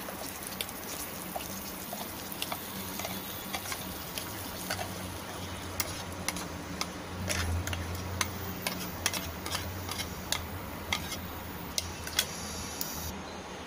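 A kitchen utensil tapping and scraping as a thick blended masala paste is emptied from the mixer jar into the pan of cooked onions and stirred in. The taps are sharp and irregular, over a low steady hum that swells for a couple of seconds midway.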